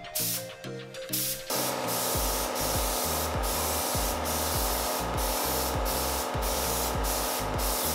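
Compressed-air paint spray gun hissing as it sprays primer, steady from about a second and a half in. Background music with a steady bass beat plays under it.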